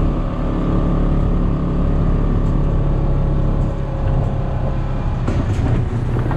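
Vehicle engine running steadily under way, with road and tyre noise from driving over rough, sandy ground.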